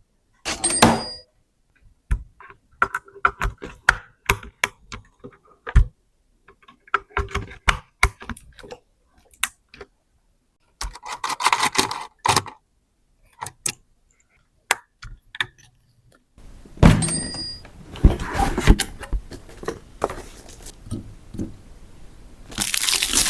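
Clicks, taps and light knocks of PC components and screws being handled and fitted during a PC build. About two thirds of the way in, the handling becomes dense and continuous, with a steady hiss under the clicks.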